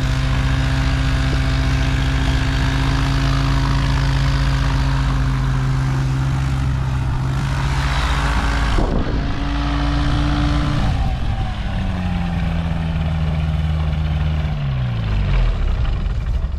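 Light aircraft's engine and propeller running at a steady pitch, then slowing over several seconds and winding down near the end, as when the engine is throttled back and shut down.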